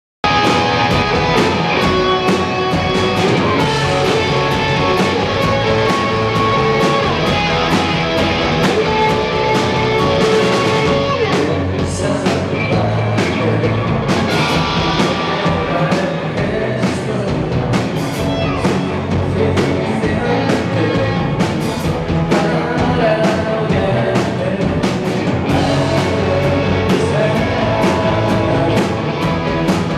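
Live rock band playing: electric guitars and drum kit, with a man singing into the microphone, most clearly near the end.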